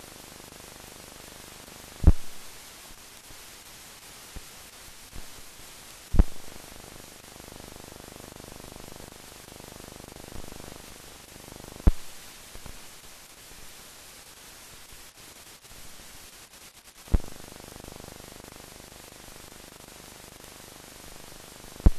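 Steady hiss of a blank film soundtrack, with five sharp pops a few seconds apart.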